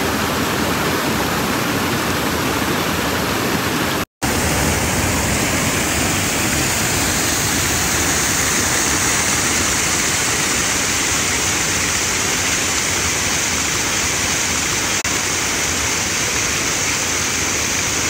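Steady rushing water of Dudhsagar Falls pouring down the rock face. The sound cuts out for a split second about four seconds in.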